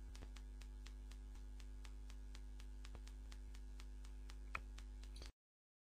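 Steady low electrical mains hum from the recording chain, with faint regular ticking and one slightly louder click near the end. It cuts off abruptly to complete silence about five seconds in.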